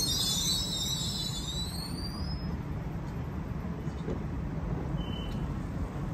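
Electric suburban train at the station: a high wheel squeal and hiss fades away over the first two seconds or so, leaving a steady low rumble. A short high beep sounds about five seconds in.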